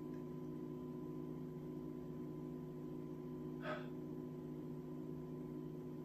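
Steady low hum of room tone, with a single short breath from the singer about three and a half seconds in.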